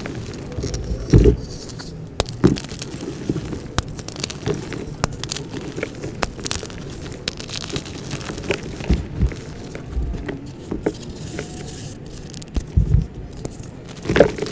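Hands squeezing and crumbling clumps of baby powder and cornstarch among gym chalk blocks: a steady run of soft crunching and small crackles, with a few heavier thumps about a second in and near the end.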